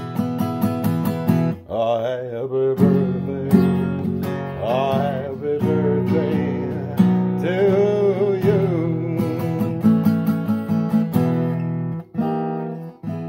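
Acoustic guitar strummed in a steady rhythm, with a voice singing along in places. The strumming drops out briefly twice.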